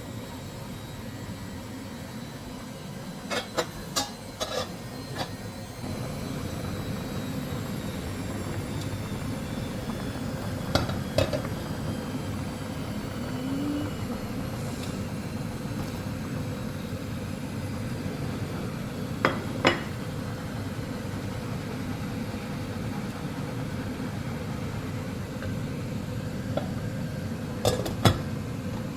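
Metal utensil clinking against a cooking pot a few times in short clusters, over a steady low noise that grows louder about six seconds in.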